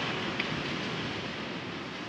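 Ocean surf washing on the beach, a steady even hiss that eases slightly, with a brief faint click about half a second in.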